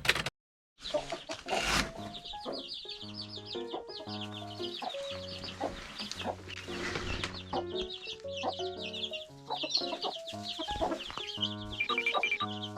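Chicks peeping, a rapid run of short high-pitched cheeps, over background music. Both cut out briefly just after the start.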